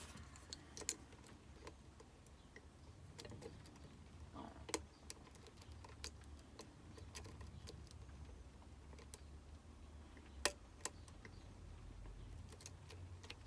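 Faint, scattered metallic clicks and ticks of a lock pick working the spool pins of a Union D-Tec euro cylinder, with one sharper click about ten seconds in, over a low steady hum.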